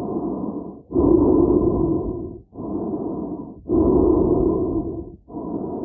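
A person breathing slowly and heavily inside a helmet, the breath heard close and muffled. Breaths in and out follow each other about every second and a quarter, alternating louder and softer.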